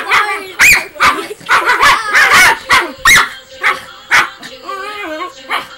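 Miniature pinscher barking rapidly at a toy, about a dozen sharp, high, yappy barks in quick, uneven succession, bunched most tightly a couple of seconds in.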